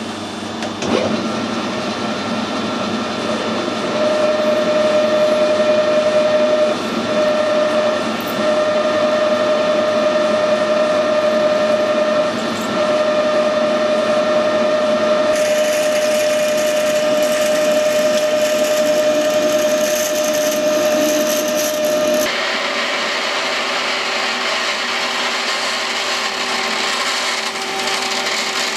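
Metal lathe running with a steady whine while a cut is taken to bring the bore of a bush to size for threading. A harsher, higher hiss of cutting joins about halfway through, and the sound changes again a few seconds later.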